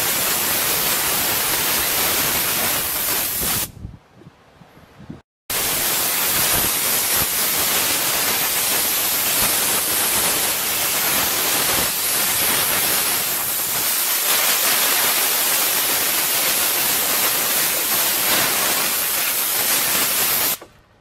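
Compressed air blowing out a window air conditioner: a loud, steady hiss of air from the nozzle, clearing out dust and small debris. The air cuts off about four seconds in, starts again a second and a half later, and stops just before the end.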